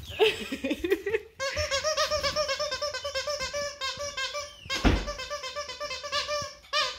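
A squeaky toy being squeezed or chewed over and over, giving a fast, even run of short high squeaks at one pitch, about six a second. A single thump comes about five seconds in.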